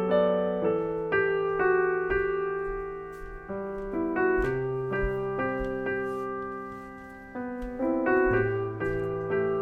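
Background piano music: a slow, gentle melody of single notes over low bass notes.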